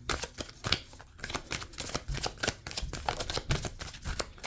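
A deck of tarot cards being shuffled by hand: a quick, irregular run of papery snaps and flicks as the cards slide and slap against each other.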